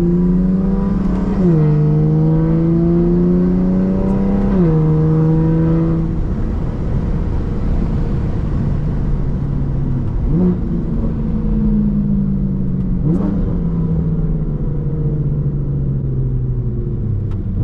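BMW F80 M3's twin-turbo S55 inline-six, breathing through an equal-length exhaust, accelerating hard with two quick upshifts of the dual-clutch gearbox in the first five seconds. It then backs off to a steady lower drone, broken by two short rev blips on downshifts.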